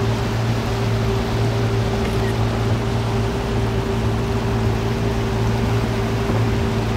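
Boat motor running at a steady speed, a constant low drone with an even rushing noise of water and wind over it.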